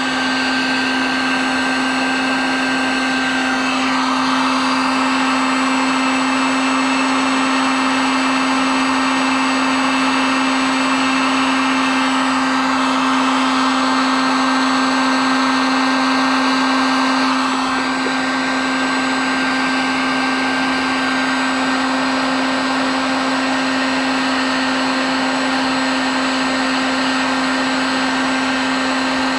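Handheld electric heat gun running steadily, melting plastic for a weld patch: a constant fan-motor hum under a rush of hot air. The air rush brightens about four seconds in and eases back later on.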